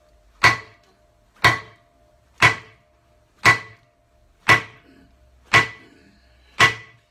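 Sledgehammer striking a lorry's cast steel front wheel hub seated in its brake drum: seven steady, unhurried dead-weight blows about one a second, each a sharp metallic clang with a short ring. The blows are meant to split the seized hub out of the drum.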